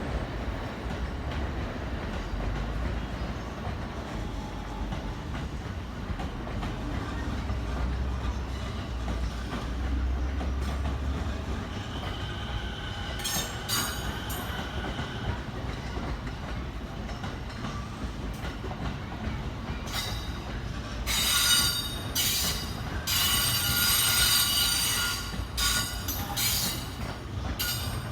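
Electric train running through the station with a steady low rumble of wheels and motors; from about twenty seconds in, loud high-pitched wheel and brake squeal comes in repeated stretches.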